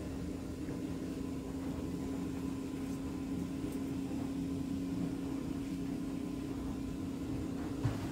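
Steady machine hum with a low, unchanging tone, and a faint click near the end.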